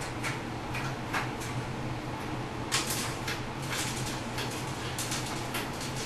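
Handling noise: scattered soft scrapes and clicks from a hand-held phone and camera, a cluster of them about three seconds in, over a steady low hum.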